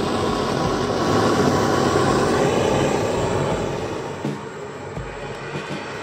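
Propane torch flame burning with a steady roar while it heats a coil of 85/15 brass wire to anneal it, easing off slightly about four seconds in.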